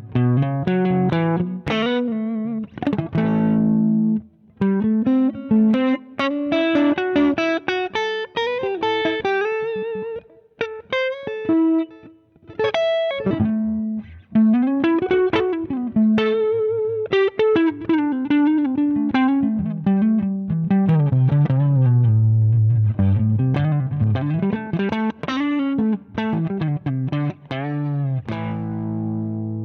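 Electric guitar played through a Zander Circuitry Surplus overdrive pedal: a lead line of single notes with string bends and vibrato, ending in a held chord.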